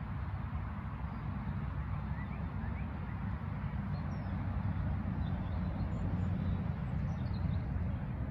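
Steady low outdoor rumble, with a few faint, short bird chirps scattered over it.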